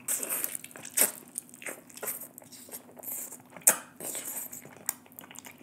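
Close-miked eating sounds: chewing with wet mouth smacks and scattered sharp clicks, the sharpest about three and a half seconds in.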